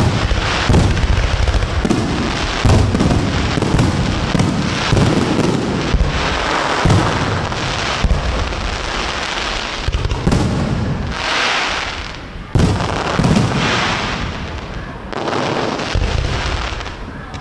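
Aerial fireworks display: a dense barrage of shell bursts and booms with crackling between them, thinning to a few brief lulls near the end.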